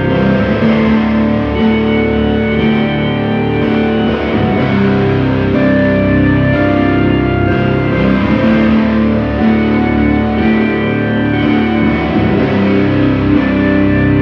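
Live drone music: held notes on a Casio keyboard layered with distorted electric guitar (a Travis Bean TB1000S) through effects, forming a dense, steady wall of sustained tones that shift slowly.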